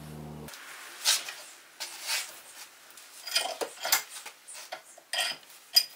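Scattered metallic clinks and knocks of hand tools at a bench vise, a breaker bar and socket being set up and worked to press a wheel stud into a strut mount.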